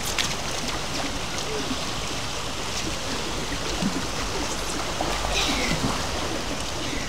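Steady rushing and lapping of swimming-pool water stirred by swimmers, with a few light splashes.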